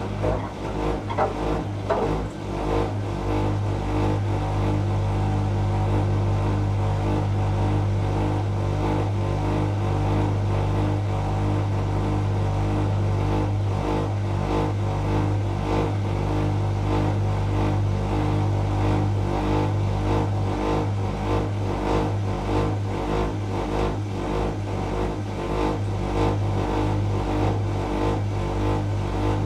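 Washing machine running with a steady, engine-like drone, a low hum underneath and a steady whine above it, sounding like a jet engine.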